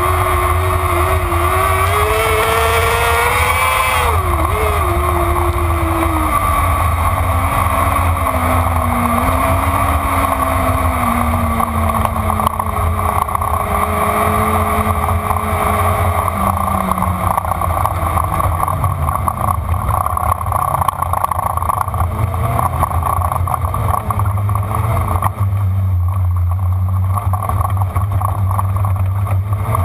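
Onboard a dirt-track race car, its engine runs and its pitch falls gradually through the middle as the car slows, with heavy wind rumble on the microphone.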